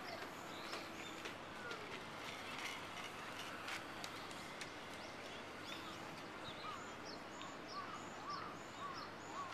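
Outdoor park ambience: birds chirping in short repeated calls, which come about twice a second in the last few seconds, over a faint steady background noise with a few light clicks.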